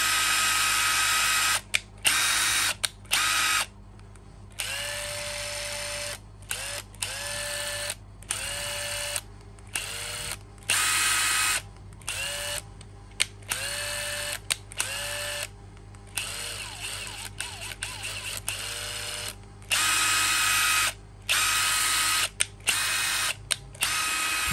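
Makita XDT15 18V brushless impact driver run unloaded in many short trigger pulls. Each time the motor whines up to speed, holds briefly and stops. The runs near the start and end are higher-pitched and those in the middle lower, as its speed setting is changed.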